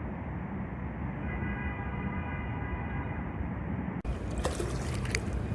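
A steady low background rumble with a faint thin tone over it. About four seconds in it cuts abruptly to sharp splashes and drips of water from a kayak paddle.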